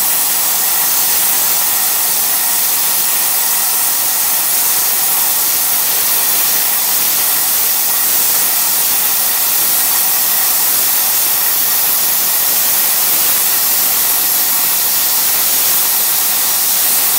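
Cut 60C plasma cutter with built-in air compressor cutting through 12 mm steel plate: a steady, loud hiss of the arc and air jet, with a faint steady hum underneath.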